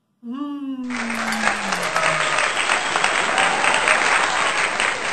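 A woman's drawn-out 'mmm' of relish, falling in pitch, as she tastes the food. About a second in, louder applause starts over it and carries on; it is an added sound effect.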